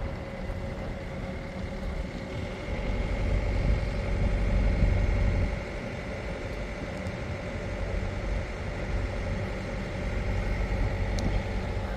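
Wooden motor boat's engine running steadily while under way, a low rumble with a faint steady whine. It swells a little about three seconds in and eases back about two seconds later.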